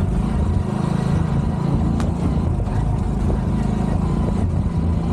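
Small motorcycle's engine running steadily while it is ridden along.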